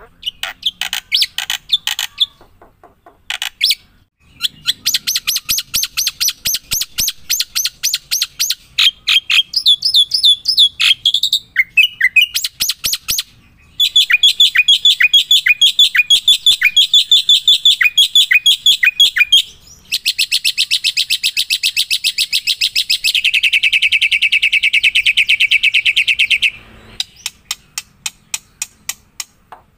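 A bird singing close up: long runs of rapid, high chirps and trills with short pauses between them, and in the second half a long, even trill that drops to a lower pitch partway through.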